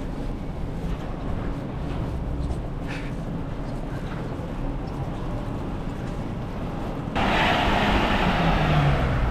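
Strong blizzard wind rushing and buffeting the microphone, a steady hiss that jumps suddenly louder about seven seconds in.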